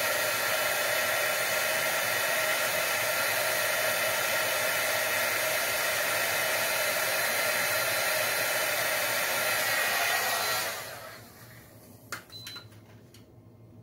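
Pen-type heat gun blowing hot air steadily onto a circuit-board chip, then switched off about ten and a half seconds in, its blower winding down within half a second. A few light clicks follow as it is handled.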